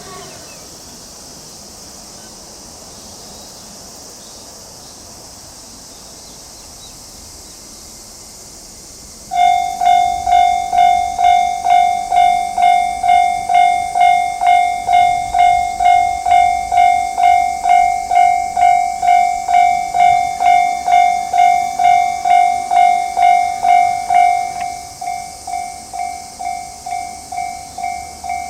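Japanese level-crossing warning bell starting abruptly about nine seconds in, ringing an electronic clanging tone at about two strokes a second. Near the end it turns quieter and thinner but keeps ringing. Before it starts there is only a steady high hiss.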